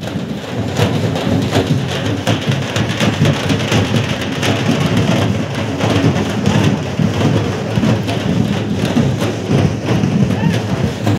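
Loud, dense din of a large procession crowd, distorted on the recording, with irregular sharp percussive beats throughout.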